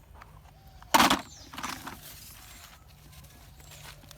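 A brief loud rustle-and-knock about a second in, then a few fainter rustles: handling of a plastic toy vehicle.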